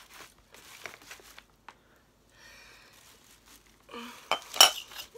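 Tissue paper rustling and crinkling as items are pushed into a wicker hamper, then a sharp clink about four and a half seconds in as a ceramic oil burner is set down among the other items.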